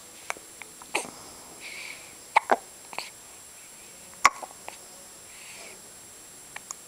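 Newborn baby hiccuping: short sharp hics at irregular intervals, the loudest about two and a half and four seconds in.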